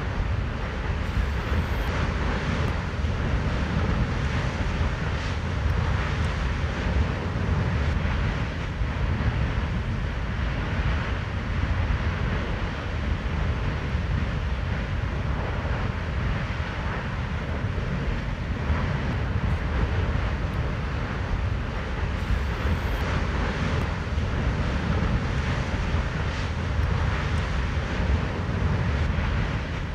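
Steady, deep roar from Kilauea's summit lava lake as gas bubbles up through spattering lava, mixed with wind buffeting the microphone.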